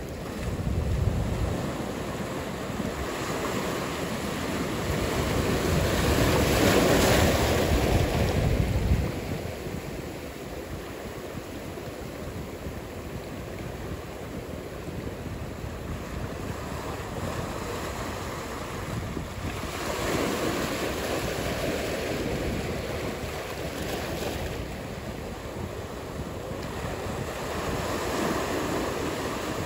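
Ocean surf washing in, with wind buffeting the microphone. A swell of noise builds and is loudest about six to nine seconds in, and a smaller one rises about twenty seconds in.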